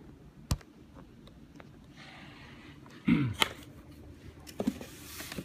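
Handling noise as a boxed vinyl figure is put down and the handheld camera is moved: a sharp click about half a second in, then rustling and a loud hollow knock about three seconds in, with more small clicks and rustling near the end.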